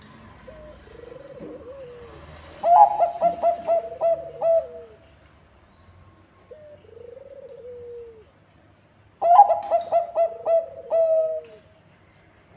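Bangkok-type zebra dove (perkutut) cooing. Two loud bursts of rapid, clipped coo notes come about six seconds apart, with softer, falling coo phrases between them.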